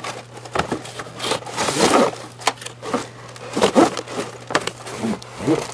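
Cardboard box and plastic wrapping scraping and crinkling as a toy blaster is slid out of its packaging, in a string of irregular pulls and rustles.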